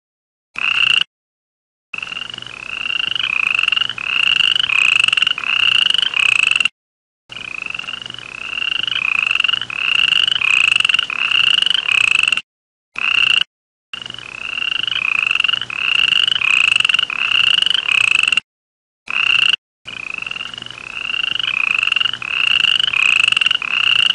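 Frog call: short, slightly rising notes repeated a little under twice a second, in runs of several seconds broken by abrupt silent gaps.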